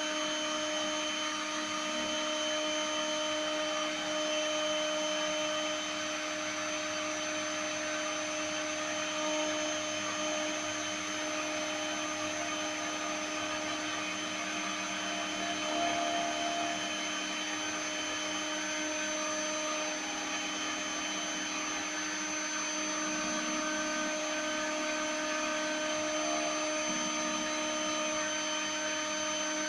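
Small CNC mill's high-speed spindle running steadily while milling a printed circuit board, a constant whine with several steady tones over a hiss.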